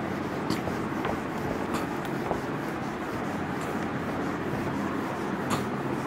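Whiteboard eraser rubbing across a whiteboard, wiping off marker writing.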